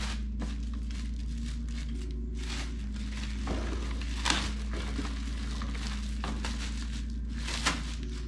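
Packaging crinkling and rustling as a parcel is unwrapped by hand, with irregular crackles and two sharper crackles, one about halfway through and one near the end. Faint background music and a low steady hum run underneath.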